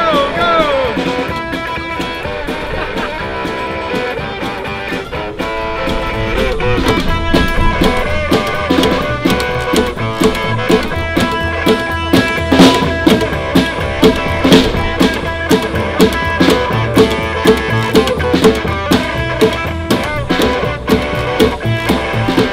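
Instrumental music played on a hollow-body electric guitar and an upright bass, with a steady beat that comes in more strongly about six seconds in.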